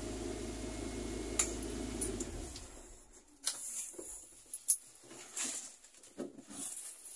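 Fiat 147 race car engine idling, heard from inside the cabin, then switched off and dying away about two seconds in, with a sharp click just before. Afterwards come scattered clicks and rustling from someone moving about inside the car.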